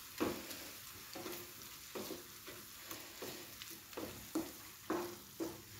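A wooden spoon stirring and scraping sautéed onions and cashew paste around a non-stick pan, in uneven strokes about one to two a second, over a faint sizzle of frying on a low flame.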